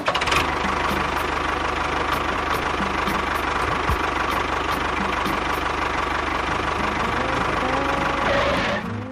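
Small engine running steadily with a fine rapid low pulsing and a constant whine, cutting off near the end.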